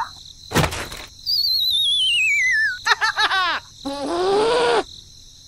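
A string of cartoon-style sound effects: a short whoosh, a long wavering whistle falling in pitch, a quick run of springy boing-like chirps, then a short squeaky voice-like sound.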